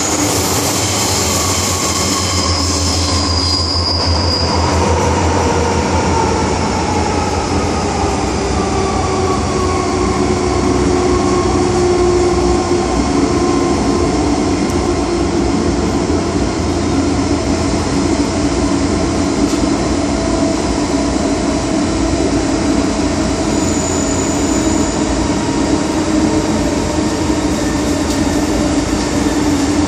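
MTR M-Train electric multiple unit running through a tunnel, heard from inside the car: a steady, loud rumble of wheels and running gear, with whining tones that slowly drift up and down in pitch.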